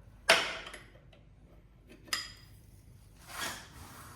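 Metal tools and engine parts clinking: one sharp metallic clank about a third of a second in, a lighter clink about two seconds in, then a softer scrape near the end, as a piston pin is worked out with a screw puller.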